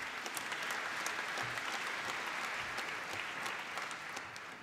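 Audience applauding: many hands clapping steadily, easing off near the end.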